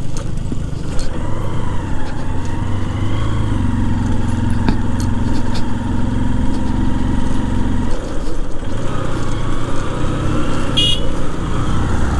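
Motorcycle engine running under way on a rough brick-paved road, heard from the rider's own bike with the other riders' motorcycles just ahead. The engine note steadies, then drops about eight seconds in. A short, high beep sounds near the end.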